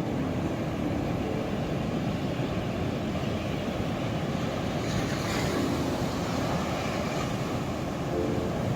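Ocean surf: a steady low rush of waves, with a wave breaking into a brighter hissing wash about five seconds in.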